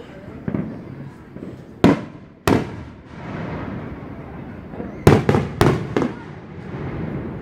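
Aerial firework shells bursting: two loud bangs about half a second apart around two seconds in, then a quick run of about four bangs some five seconds in.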